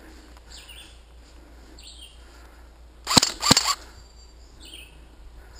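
Airsoft gun firing a quick string of about four shots in two close pairs, about three seconds in. Birds chirp faintly in the background.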